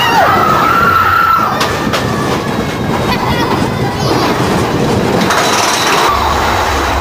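Mine-train roller coaster cars running along the track at speed, a loud, steady rattle of wheels on rail.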